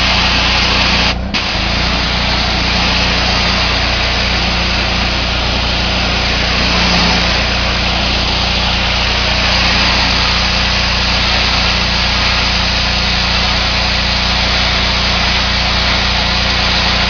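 Pressure washer running steadily: the engine-driven pump's even hum under the loud hiss of the high-pressure water jet striking the surface. The sound drops out briefly about a second in, then carries on unchanged.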